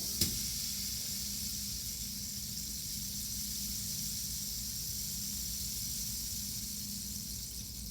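Rain stick turned over, its pellets trickling down inside with a steady high hiss like falling rain. It starts with a sharp click and eases off slightly near the end.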